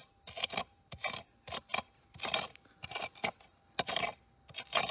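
Digging tool scraping and chipping at hard, stony ground: a dozen or so short, uneven scrapes, a couple of them longer, while a target is worked out of the hole. A faint steady tone runs underneath.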